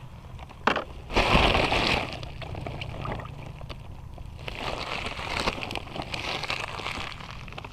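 Plastic bag crinkling and rustling as it is handled, with a sharp click just before a loud burst of rustling about a second in, then lighter crinkling near the end.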